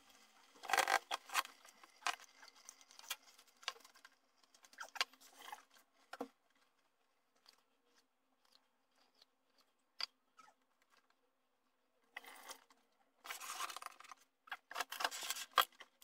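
Quiet scraping and clicking of cooking utensils in a nonstick frying pan of sautéed spinach, in short spells with pauses between. The busiest spell comes near the end, as the spinach is scooped out of the pan with a metal spoon. A faint low hum runs underneath.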